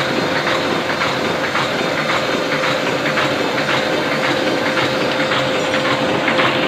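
Ryobi 520 offset printing press running steadily: a continuous mechanical hum with a steady tone and rhythmic clacking of its feed and printing mechanism.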